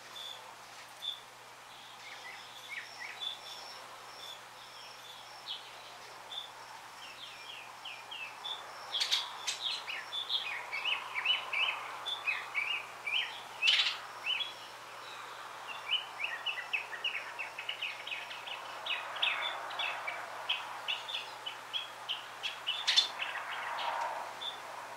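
Small birds calling: scattered short chirps, then two long runs of rapid chattering notes, with a few sharp clicks among them.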